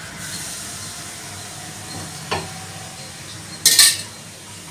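Hot oil sizzling in a hollow of maida flour in a steel bowl, a steady faint hiss. There is a single tap about two seconds in and a short, louder burst of noise a little before the end.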